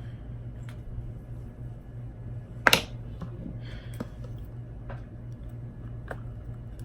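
A handful of short, sharp clicks or taps over a steady low hum, the loudest a quick double click near the middle, followed by a brief hiss.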